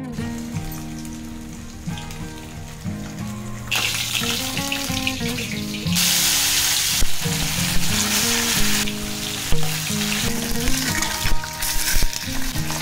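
Fish frying in hot oil in a kadai, a steady sizzle that grows louder about four seconds in and is loudest around six seconds in as the fish goes into the oil. Background music with held notes plays underneath.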